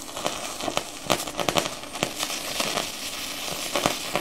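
Plasma cutter arc from a P80 torch on a 40-amp machine, run with no air flowing: irregular crackling and popping over a steady hiss. With no air to form and cool the plasma, the arc burns the steel's surface and the nozzle rather than cutting.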